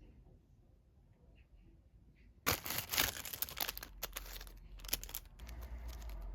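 Packaging being torn open and crinkled: a sudden burst of dense crackling and tearing starts about two and a half seconds in, then gives way to softer rustling near the end.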